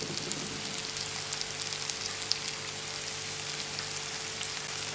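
Shallots and spices frying in a little oil in a non-stick pan: a steady, gentle sizzle with faint scattered crackles.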